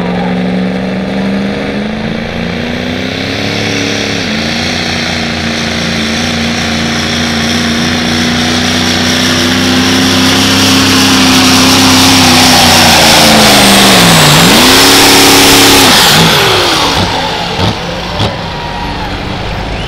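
Diesel 4WD pickup truck pulling a sled at full throttle: the engine holds a high, slowly rising pitch with a loud hiss building over it, dipping briefly about four seconds in and dropping deep then recovering around fourteen seconds. About sixteen seconds in the throttle comes off and the engine falls away, followed by two short knocks.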